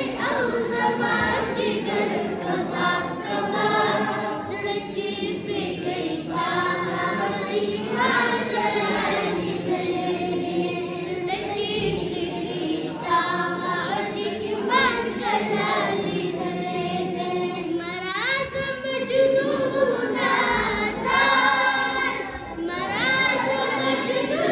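A boy singing a Pashto naat unaccompanied into a microphone, in long held notes with gliding pitch.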